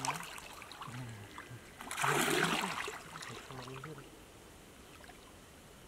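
Shallow muddy water splashing and sloshing as a mosquito net is hauled through it, with one louder splash about two seconds in.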